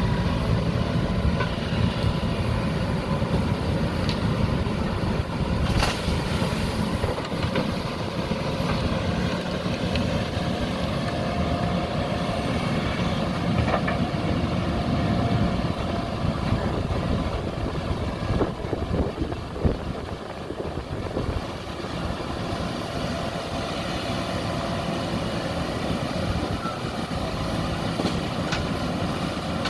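Diesel engine of a JCB backhoe loader running steadily at work, with a sharp knock about six seconds in and a cluster of knocks about two-thirds of the way through.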